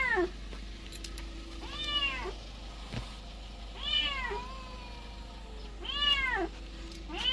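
A kitten meowing over and over, one loud call about every two seconds, each rising and then falling in pitch.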